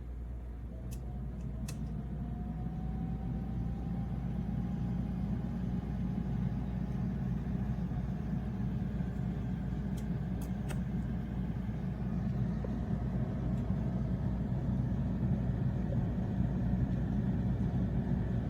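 Air fryer oven running: a steady fan hum that slowly grows louder, with a thin whine rising in pitch over the first few seconds as the fan spins up.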